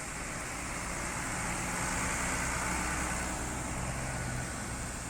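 Bus engine running with road noise, swelling louder for a couple of seconds in the middle and then easing off, as a bus moves past or pulls away.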